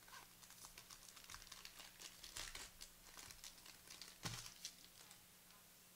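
A trading card pack's foil wrapper being torn open and crinkled: a run of quiet crackles and rustles, the sharpest about four seconds in.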